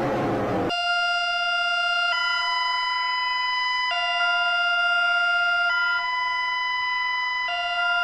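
Electronic two-tone warning siren switching back and forth between a lower and a higher steady pitch, each held just under two seconds. It starts abruptly a little under a second in, cutting off a noisier sound that falls in pitch.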